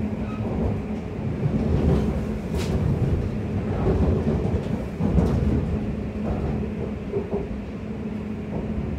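Class 345 electric train running, heard from inside the carriage: a steady rumble of wheels on the track under a low hum, with a few sharp knocks.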